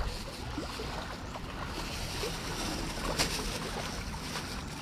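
Thin plastic bag crinkling and rustling as it is handled and pulled open, with one sharp crackle a little past three seconds, over low wind rumble on the microphone.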